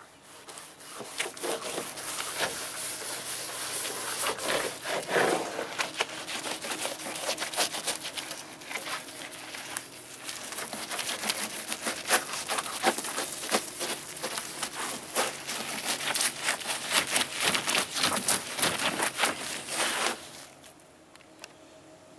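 Scrubbing pad with soapy water rubbing over the rusted, flaking steel roof around a car's rear window opening: a long run of quick, uneven scrubbing strokes that stops abruptly near the end.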